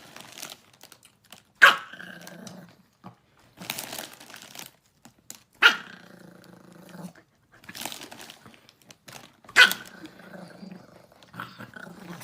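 A dog barking three times, about four seconds apart, each sharp bark drawing out into a longer pitched call of about a second, with faint rustling between.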